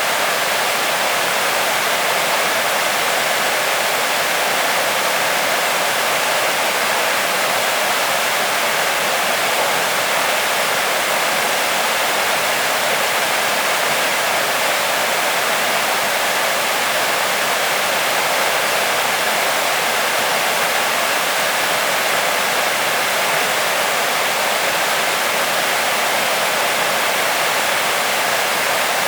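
Waterfall: water falling and splashing with a steady rushing hiss.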